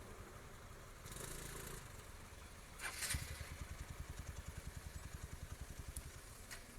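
Faint motorcycle engine starting a little under three seconds in, then idling with a fast, even pulse.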